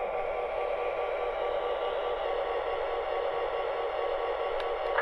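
Lionel GP38 toy diesel locomotive running, a steady hissing drone like a small speaker playing engine sound, with one small click near the end.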